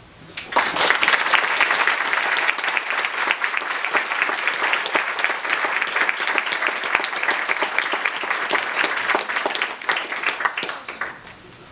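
Lecture-hall audience applauding: dense clapping that starts about half a second in and dies away near the end.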